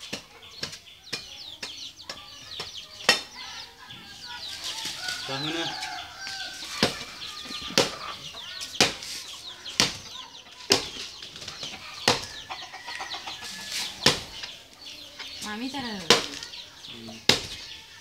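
Machete blade chopping into the husk of a green coconut, sharp single strikes about once a second. Birds chirp continuously in the background.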